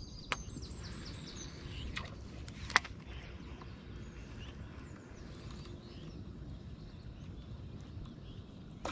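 Quiet riverside ambience: a low, steady rumble with faint bird chirps in the first second or so. A few sharp clicks stand out, the loudest about three seconds in.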